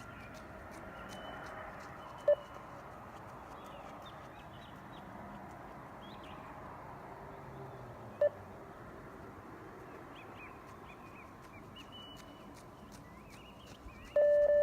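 Beep test shuttle signals: two short electronic beeps about six seconds apart, each marking the end of a 20 m shuttle run. Near the end comes a longer beep at the same pitch, marking the change from level 8 to level 9.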